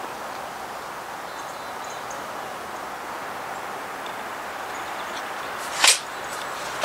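Crosman Shockwave .22 break-barrel air rifle fired once about six seconds in, a single short, sharp shot over a steady outdoor background.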